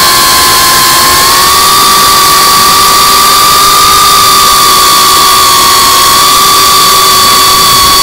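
GEPRC Cinelog35 FPV quadcopter's brushless motors and ducted propellers whining at a steady pitch, loud, over a heavy hiss of wind noise.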